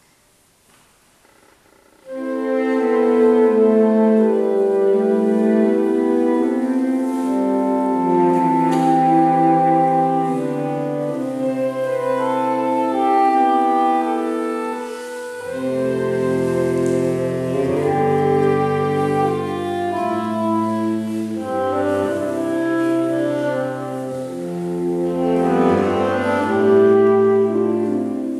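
Saxophone quartet of soprano, alto, tenor and baritone saxophones playing together in held chords, starting about two seconds in after a short silence. Deeper bass notes from the baritone saxophone come in about halfway through.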